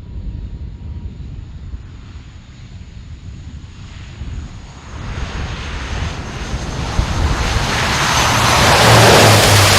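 Fixed-wing aircraft engine noise growing steadily louder as the airplane comes closer. It starts as a faint rumble and builds to a loud rushing roar over the last few seconds.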